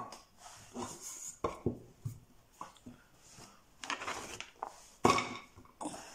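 Carrot slices being scooped up by hand off a plastic chopping board and dropped into a pan: a string of irregular light knocks and clatters, the loudest about five seconds in.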